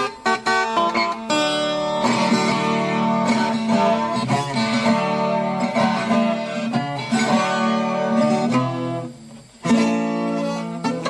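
Instrumental viola caipira music: quick plucked notes, then a run of strummed chords. Near the end it drops away briefly, then comes back with one hard strum and more plucking.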